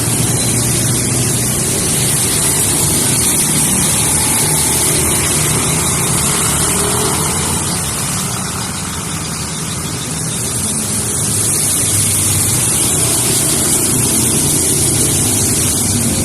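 Road traffic driving through deep standing water: vehicle engines running and tyres throwing up spray, over a continuous hiss. The sound eases a little about halfway through, then builds again.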